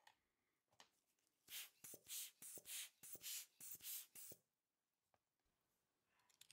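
A watchmaker's hand air blower puffing air over a watch dial: a quick run of about eight short hissing puffs, from about one and a half seconds in to past four seconds.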